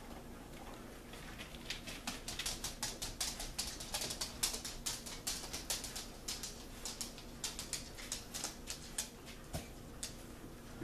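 Dog nails clicking on a hard floor: a quick, irregular patter of sharp ticks that starts about a second and a half in, is busiest in the middle, and thins out near the end.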